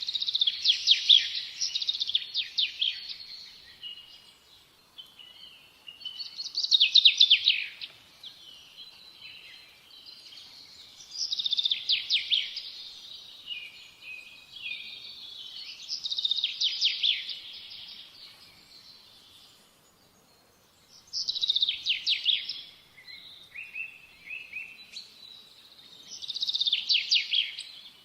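A songbird singing, repeating a short phrase of rapid notes about every five seconds, six times in all.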